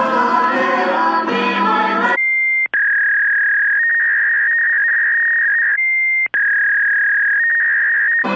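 Music for about two seconds, then a single high, steady pure tone that wavers briefly in its middle. The tone pattern plays twice in identical form, each time broken by a short dropout just after it starts.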